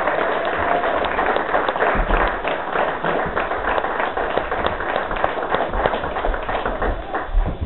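Audience applauding: many hands clapping at once, which dies away near the end.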